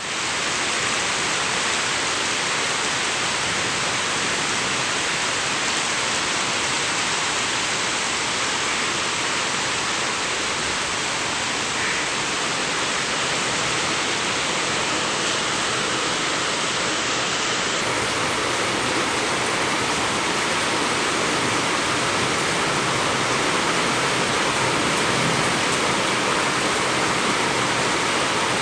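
Heavy rain falling steadily, a dense, even hiss with no separate drops standing out.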